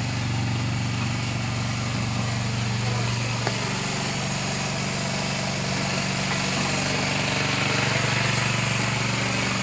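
An engine running steadily, a low even drone, with a single click about three and a half seconds in.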